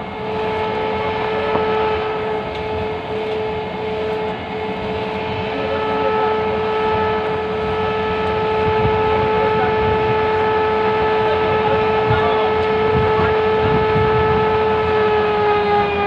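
Sawmill band saw running with a steady high-pitched whine over a low rumble; the pitch sags slightly near the end.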